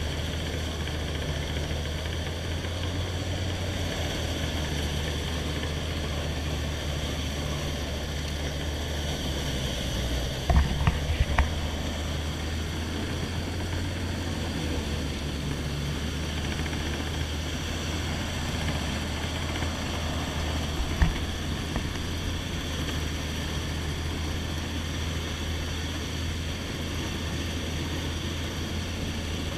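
Boat engine running steadily as the boat moves through the marsh. A quick cluster of knocks comes about ten seconds in and a single knock at about twenty-one seconds.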